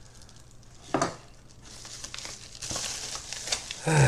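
Paper mailer bag being torn open and handled, the paper crinkling and rustling in ragged bursts that build through the second half.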